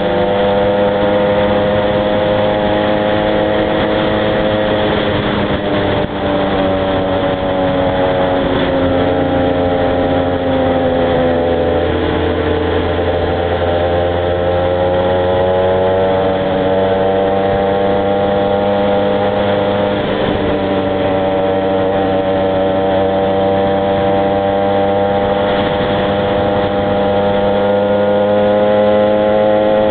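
Two-stroke engine of a ridden motorcycle, the Honda NSR 125R with a Yamaha Aerox 70 scooter alongside, running steadily. About five seconds in its note drops for several seconds as it slows, then climbs back as it accelerates and holds.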